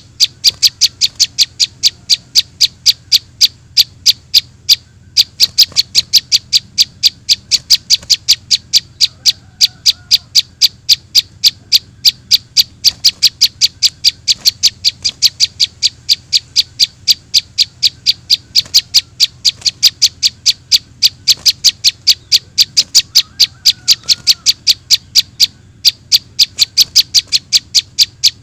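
Rapid, very regular series of short, high chirps, about four a second, repeated without letup except for brief pauses: a looped bird-lure recording of juvenile prinia (prenjak) calls.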